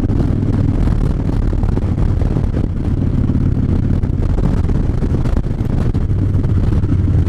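Harley-Davidson V-twin motorcycle engine running steadily under way, with wind noise.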